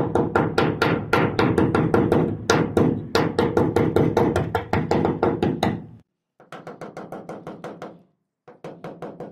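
Bodywork hammer rapidly striking the rotten steel lip of a Mercedes Vario wheel arch, knocking out rust and old filler. The blows come at about five a second, each with a short metallic ring. They break off about six seconds in, then return lighter in two shorter runs.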